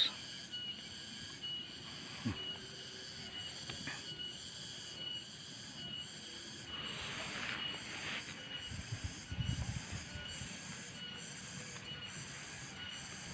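A chorus of insects shrilling steadily, high-pitched and pulsing at about two beats a second. Brief rustling comes about halfway through.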